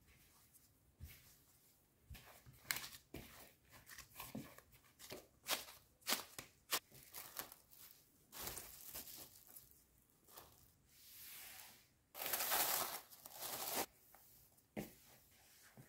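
Plastic cling film crinkling and crackling as it is stretched over and handled around a plastic mixing bowl of dough, mixed with hands working the dough in the bowl. It comes as a run of short crackles, with the loudest burst about twelve seconds in.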